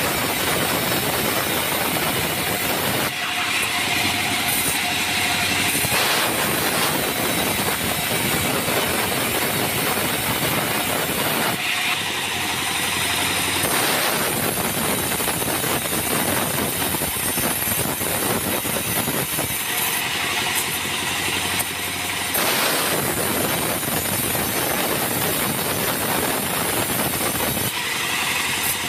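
Bandsaw running and ripping an acacia log lengthwise, the saw steady throughout. About every eight seconds the cutting noise thins for a couple of seconds as one pass ends and the log is fed through again.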